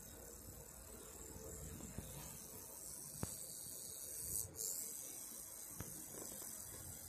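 Fiber laser marking machine deep-engraving metal: a steady faint hiss and rasp, with two sharp clicks part-way through.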